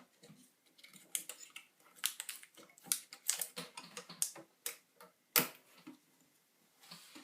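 Irregular clicks and taps of hands handling the internal hard drive and its metal and plastic mounting parts inside an opened iMac G4, with the loudest knock about five and a half seconds in.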